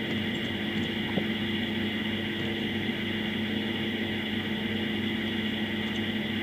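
Steady background hum with several held tones under an even hiss, like a machine or electrical hum, holding level throughout.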